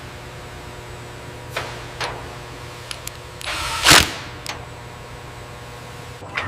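Factory machinery: a steady low hum with scattered sharp clicks and short whooshes, and one loud sweeping whoosh ending in a hit about four seconds in.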